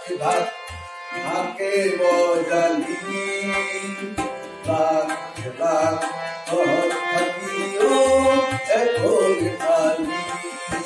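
A man singing into a microphone to harmonium, with tabla accompaniment played in a steady stream of strokes.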